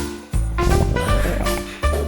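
Upbeat jazzy soundtrack music with a bass line and a steady beat.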